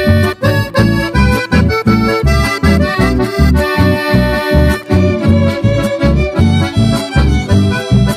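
Instrumental chamamé music led by accordion over a steady, evenly pulsing bass beat, with no singing.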